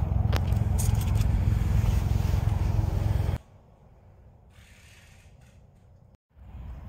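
Loud low rumble with rustling handling noise. It cuts off abruptly about three and a half seconds in, leaving a faint hiss.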